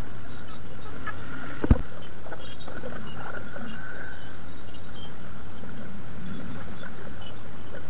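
Steady background hum of street traffic and a busy shop, with a single sharp thump a little under two seconds in.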